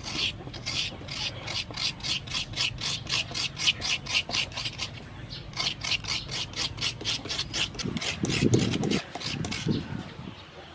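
Fresh coconut meat being scraped out of a half shell with a hand coconut scraper: quick rasping strokes, about four a second, with a brief dull bump about eight seconds in.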